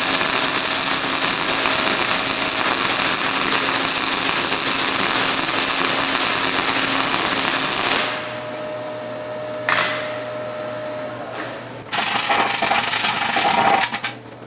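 MIG wire-feed welder's arc crackling steadily on the steel shell of a muffler as weld beads are laid. It stops sharply about eight seconds in, followed by a single click and a shorter burst of noise near the end.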